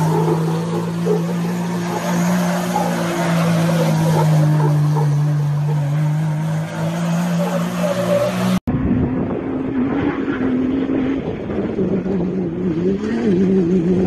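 Off-road vehicle engine running under load at steady revs. After an abrupt cut about two-thirds through, a second engine takes over, its revs rising and falling.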